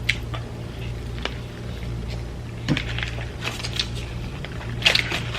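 Eating sounds: scattered small clicks and wet smacks as someone bites and chews fried chicken, over a steady low hum.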